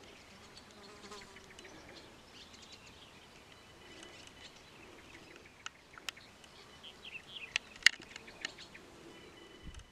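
Faint outdoor ambience with small chirping calls, and a few sharp clicks in the second half, the loudest about eight seconds in.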